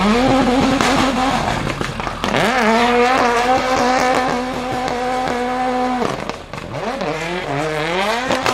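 A high-performance car engine revving hard: the pitch climbs and holds, dips about two seconds in, climbs and holds steady for about three seconds, falls sharply about six seconds in, then climbs again near the end.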